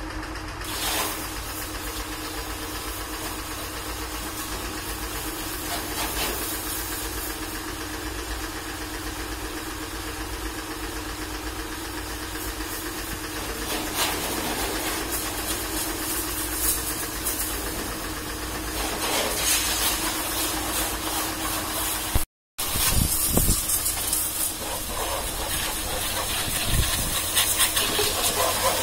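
Pressure washer running steadily, its motor humming under the hiss of the water jet. After a short break about two-thirds through, the spray is louder as it strikes the wheel and tyre.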